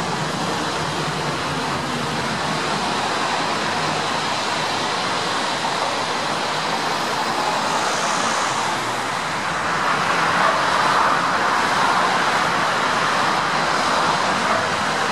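Road traffic noise of cars passing on a busy multi-lane road, a steady rush that swells louder about two-thirds of the way through.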